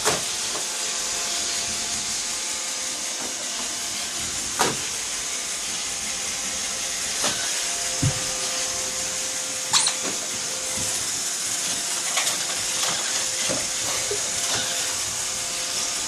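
Roomba robot vacuum running on a hardwood floor, a steady whirring hiss with a faint constant hum, broken by a few brief knocks.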